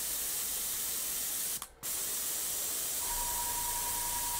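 Gravity-feed airbrush spraying water out of its nozzle into a cleaning pot: a steady hiss of air and mist as primer is flushed out until the water runs clear. The spray cuts out briefly about a second and a half in, then resumes, and about three seconds in a low hum with a steady whine joins it.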